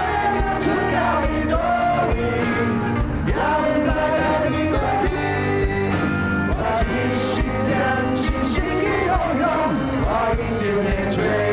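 A rock band plays with electric guitars, bass guitar and drums, with male voices singing the lead.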